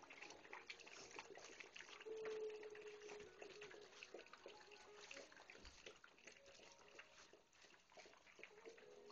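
Faint, continuous bubbling and gurgling made of many tiny crackles, with short wavering tones, one of them held for about a second a couple of seconds in; it sounds like the jets of a whirlpool bath.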